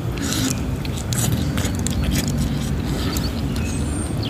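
Close-up chewing with short crisp crunches, a person eating crunchy food, over a steady low hum.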